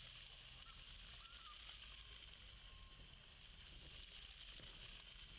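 Near silence: a faint steady hiss, with a few faint short chirps about a second in.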